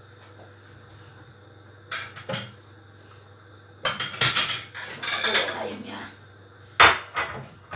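Crockery clinking and clattering as plates are taken out of a wall cupboard and set on the counter: a few light knocks, a busier run of clinks, then the loudest clatter near the end.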